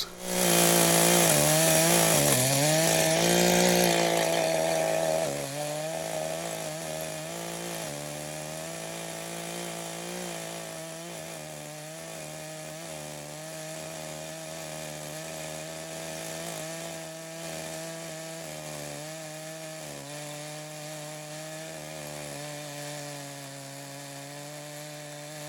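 Echo CS-590 two-stroke chainsaw with a ripping chain running at full speed, milling a slab lengthwise from a red oak cant. The engine note holds steady, loudest for the first five seconds and quieter after that.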